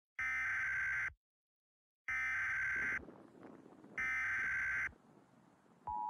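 Emergency Alert System SAME header: three bursts of warbling digital data tones, each just under a second, about two seconds apart. These are the coded alert heading for a weather radio warning. A click and the steady two-tone attention signal start right at the end.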